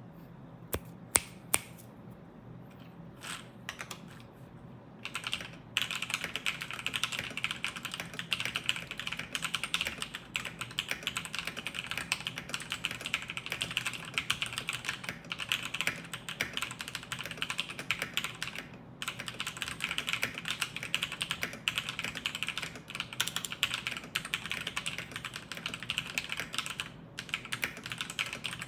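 Mechanical keyboard typing on an Acer Predator Aethon 301 with TTC Silver Speed linear switches in a steel plate, no foam, and OEM-profile keycaps. A few single key presses, then fast continuous typing from about five seconds in, with a few brief pauses.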